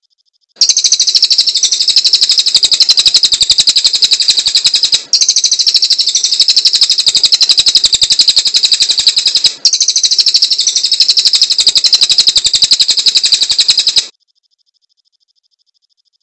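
Cililin bird singing a rapid, high-pitched chattering trill of fast repeated notes. The song comes in three near-identical stretches of about four and a half seconds, like a looped recording, starting and stopping abruptly.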